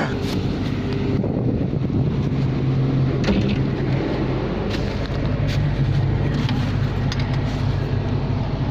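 Boat engine running steadily with a low drone, under a constant rush of wind and water, with a few sharp knocks.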